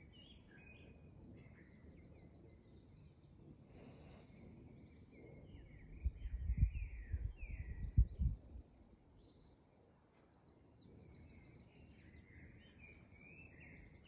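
Dawn chorus of several songbirds: overlapping chirps, warbles and fast high trills. A few low thumps about six to eight seconds in are the loudest sounds.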